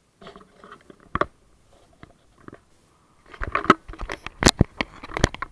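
Hands handling the camera close to its microphone: a rustle and one sharp knock about a second in, then a quick run of loud clicks and knocks as it is picked up.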